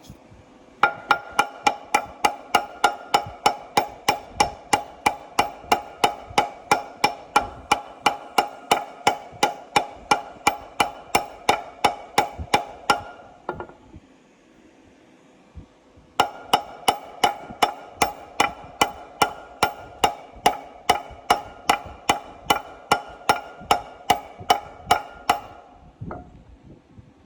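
Steady hammer blows driving a bearing race in a Gleaner R72 combine's final drive housing, about two and a half strikes a second, each with a metallic ring. Two long runs of blows with a pause of a few seconds between them.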